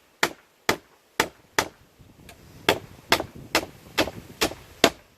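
Hammer blows, about two a second, knocking ring shank nails out of a wooden pallet, with a short gap about two seconds in.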